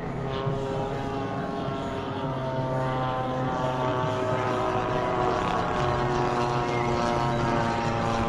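Engines and propellers of radio-controlled model warbird airplanes droning steadily, the pitch shifting slightly as they fly.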